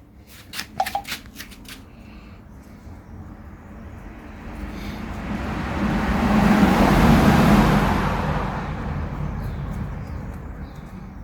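A few light clicks, then a road vehicle passing by: a broad rumble that swells over several seconds to a peak about seven seconds in and fades away again.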